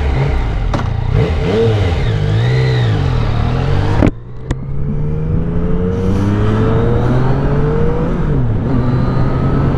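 2015 Yamaha FZ-09's 847 cc inline-three engine blipped up and down a few times at a standstill. After a sharp click and a brief drop in level about four seconds in, it pulls away and accelerates, its pitch rising in steps through the upshifts.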